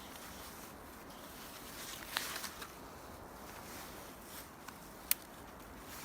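Quiet handling noises from pitching a canvas tent: a short cluster of sharp clicks and rustles about two seconds in and a single sharp click near the end, over a steady outdoor hiss.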